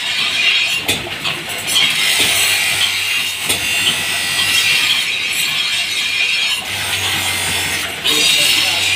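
Steel talwar blade ground on a motor-driven abrasive grinding wheel: a steady hissing grind over the low hum of the wheel's motor. The grind breaks off briefly about a second in and again near the end as the blade is lifted and set back against the wheel.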